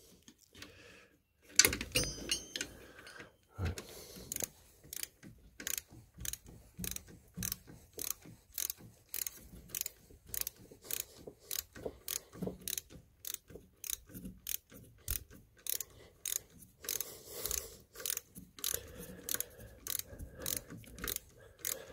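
Socket ratchet clicking in a steady run, two to three clicks a second, as an alternator mounting bolt is wound in to take up slack in the mounting.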